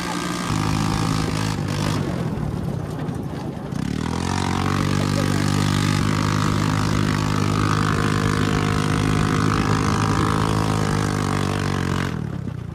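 Straight-piped Hammerhead go-kart engine running under way. It eases off for a couple of seconds, picks up again about four seconds in and holds a steady drone, then drops away sharply near the end.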